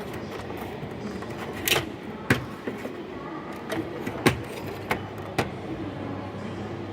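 A handful of sharp, short knocks and clacks at uneven intervals, the loudest about two seconds in and again past four seconds, over a steady background hum of shop noise.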